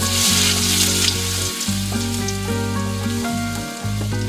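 Minced garlic sizzling in hot oil in a steel wok as it is stirred. The sizzle is loudest in the first second or so, then eases to a steadier frying hiss.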